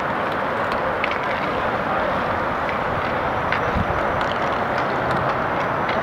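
Inline hockey in play: a steady rolling rush of skate wheels on the rink floor, with scattered light clicks of sticks and puck.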